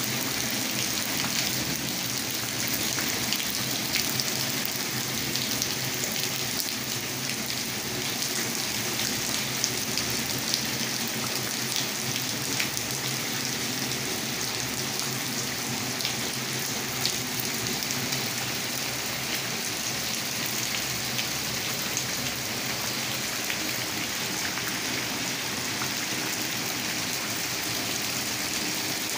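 Heavy rain falling steadily on a flooded concrete yard, a dense even hiss with scattered sharp ticks of individual drops.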